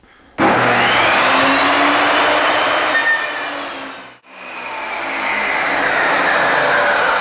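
Benchtop table saw running and ripping a 2x4 lengthwise into 2x2 strips. The sound starts abruptly about half a second in, cuts out briefly a little past the middle, then swells back up and keeps going.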